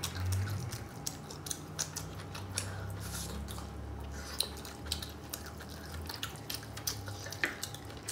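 Eating sounds at a table: scattered wet clicks of chewing and lips, with light taps of a metal fork and spoon on a plate.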